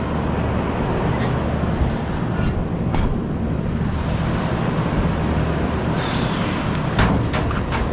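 Steady low droning hum of rooftop air-conditioning machinery running, with a few light clicks and knocks about a second in, around three seconds in and near the end.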